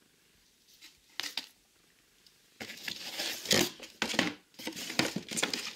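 A couple of light knocks. Then, from about two and a half seconds in, a run of rustling, crinkling and scraping as cardboard boxes and packing paper are handled and pulled out of a parcel.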